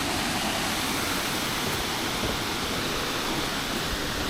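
Steady rush of a mountain stream's water splitting on a large boulder and falling fast in a cascade.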